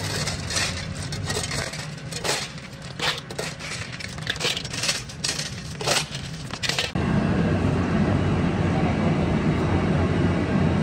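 Metal parts and tools clinking and scraping over a low steady machine hum. Near the end this cuts suddenly to a louder, steady rumbling machine noise.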